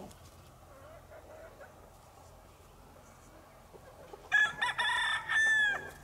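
A rooster crowing once, a loud cock-a-doodle-doo about a second and a half long starting about four seconds in, its last note falling away.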